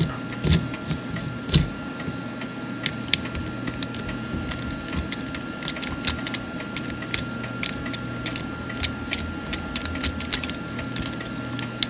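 Light, irregular metallic clicks and ticks, a few a second, with one louder click about one and a half seconds in. They come from a 1913 Gilbert clock movement whose mainspring is being let down by hand through a letdown tool into a spring clamp.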